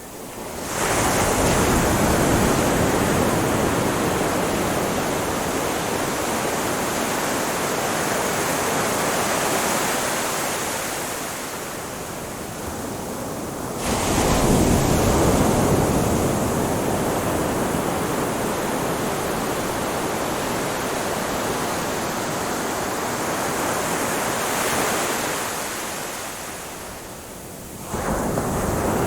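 Ocean surf breaking on a beach: a continuous rush of water that swells sharply with a new wave about a second in, again around halfway, and near the end, easing off in between.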